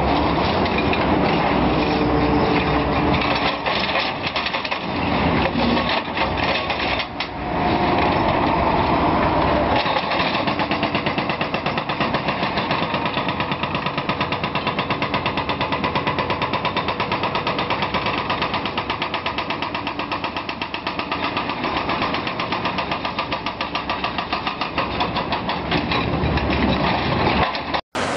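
Wheeled excavator's engine running under load, with a fast, steady mechanical rattle.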